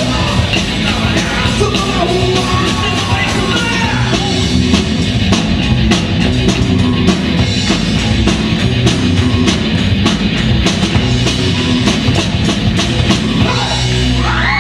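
Rock band playing loud and live: drum kit, bass and electric guitar with a singer's voice. Near the end a rising glide leads into yells.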